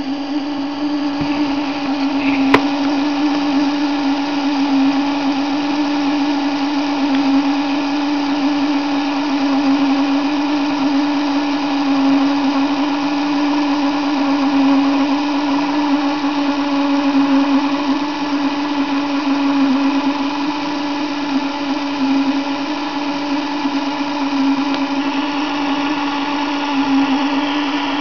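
Small electric drive motor and gearing of an H0-scale model Twister fairground ride running, a steady hum with a single click about two and a half seconds in.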